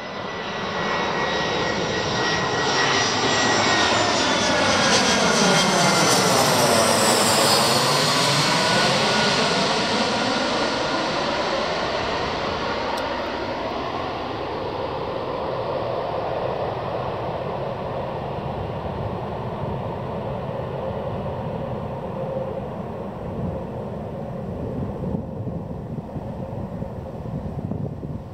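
Twin-engine jet airliner passing low overhead on approach, its high engine whine falling in pitch as it goes over and loudest about five to nine seconds in. The engine noise then holds steady and loud as it climbs away on a go-around.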